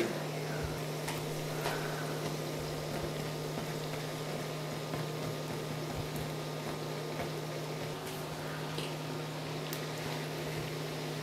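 Curd-filled dough pancakes frying in hot oil in a non-stick pan, a steady sizzle of bubbling oil over the constant low hum of an induction cooktop. A few light clicks of a metal fork against the pan as the pieces are turned.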